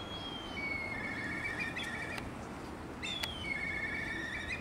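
Black kite calling twice. Each call is a high whistle sliding down, then a long quavering trill: the kite's 'pee-hyoroh' call.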